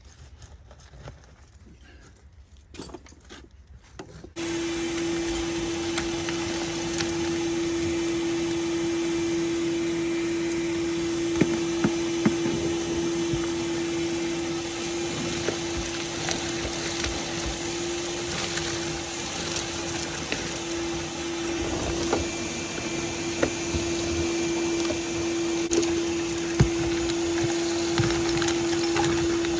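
Vacuum cleaner switched on about four seconds in and running steadily with a constant hum, with scattered ticks of grit and pine straw being sucked up from the trunk floor.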